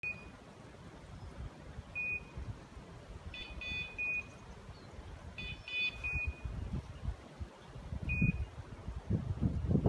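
Pointing dog's beeper collar in point mode: a short high beep about every two seconds, the signal that the dog is standing on point. Twice a second, richer beep sounds in between, over a low rumble.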